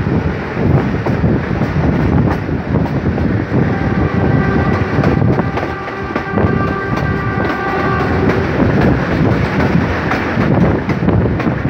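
A Pakistan Railways diesel locomotive's horn sounds one steady chord of about five seconds, starting a few seconds in. It plays over the continuous rumble and wind of the train picking up speed.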